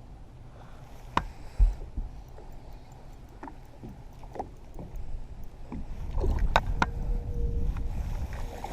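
Scattered knocks and clicks on a fishing boat, the loudest a sharp thump about a second and a half in, over low rumbling noise from wind and water that grows louder in the second half.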